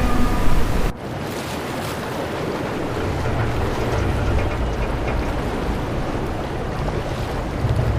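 A loud, even hiss cuts off abruptly about a second in and gives way to a steadier city street ambience: a continuous low rumble under a hiss, with a few faint clicks.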